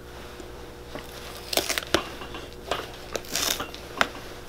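Pincers prying a worn rubber heel pad off a leather boot heel: a run of short tearing and crunching sounds with a few sharp clicks, starting about a second and a half in, as the rubber pulls away from the heel block.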